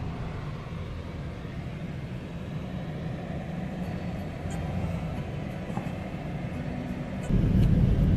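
Road noise inside a moving car's cabin: a steady low rumble of engine and tyres, getting louder about seven seconds in.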